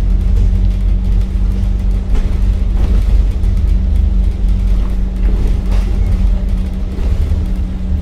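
Scania K310UD double-decker bus's diesel engine running as the bus drives along, with a heavy low rumble and a steady drone. A few faint knocks come through it.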